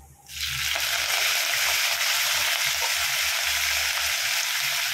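Fresh curry leaves dropped into hot peanut oil with a mustard and cumin seed tempering, setting off a sudden, loud, steady sizzle a moment in.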